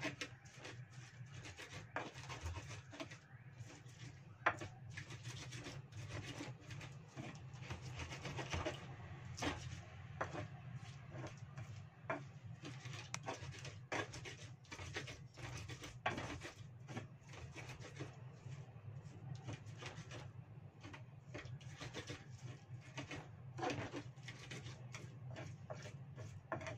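Pestle grinding a spice paste of shallots, garlic, chillies and shrimp paste in a cobek (Indonesian mortar): irregular scraping and knocks against the mortar, over a steady low hum.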